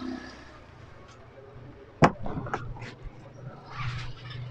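A single sharp knock about two seconds in, followed quickly by several lighter clicks and knocks and a short rustle: handling noise from objects being moved and set down, over a low steady hum.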